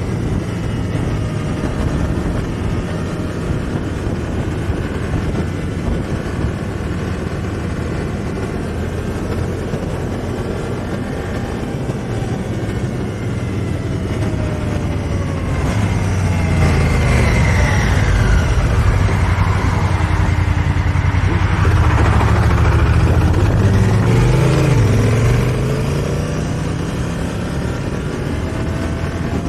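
2018 Honda Africa Twin Adventure Sports' parallel-twin engine running as the motorcycle rides along. From about halfway through it gets louder for several seconds, the revs rising and falling, then it settles back to a steady cruise.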